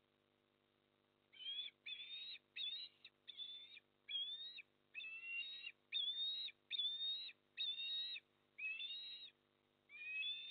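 Eastern osprey calling: a series of about a dozen high, whistled call notes, roughly one a second, starting about a second in.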